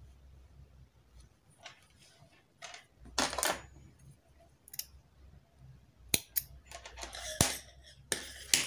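Hands handling a knitted garment: soft rustling of the yarn fabric, a louder rustle about three seconds in, and a few sharp clicks later on.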